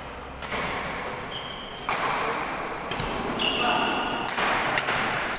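Badminton rally: rackets striking the shuttlecock about five times, roughly a second apart, with short high squeaks of sneakers on the court floor in the second half.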